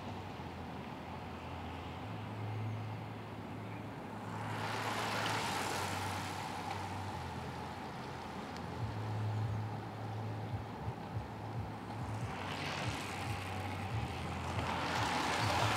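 Road bicycles riding past close by, their tyre whir swelling twice as groups of riders go by, over a low steady rumble.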